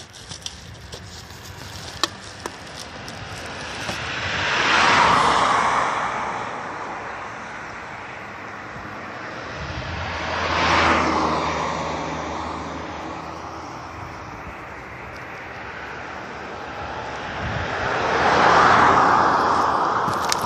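Vehicles passing on the street, three in turn, each swelling up and fading away over a few seconds. A sharp click about two seconds in.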